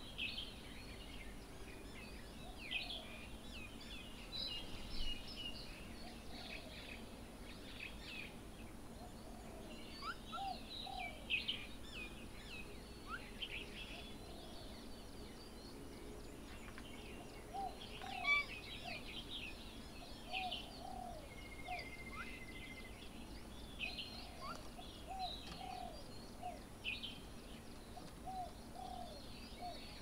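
Birds calling and chattering throughout, with many short high chirps and trills. A lower short call repeats every few seconds, often in pairs, over a faint steady outdoor background.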